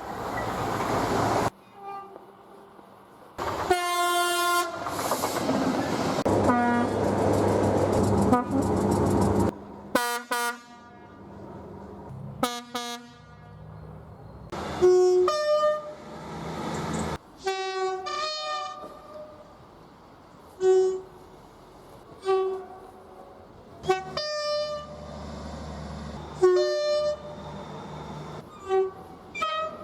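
A string of British train horn blasts spliced together from different recordings: mostly short toots, many sounded as two-note high-then-low pairs. In the first third a train passes, its rumble and rail noise under the horns for several seconds.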